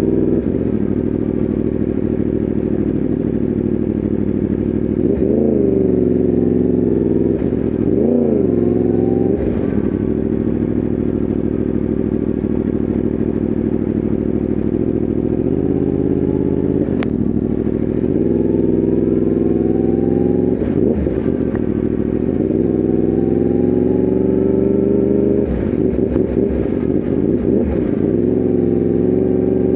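Yamaha R1M's crossplane inline-four engine running under way, with quick dips and recoveries in pitch about 5 and 8 seconds in, a steady climb in pitch around the middle, and a single sharp click about 17 seconds in.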